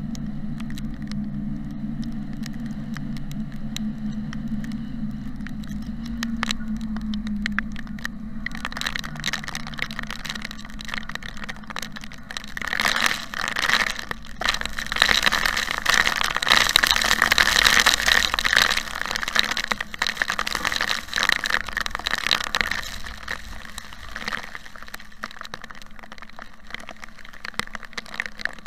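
Rain pattering on a moving car's roof and windshield, heard from inside the cabin: scattered drops over a steady engine and tyre hum at first, then a heavy downpour sets in about eight seconds in, loudest in the middle and easing near the end.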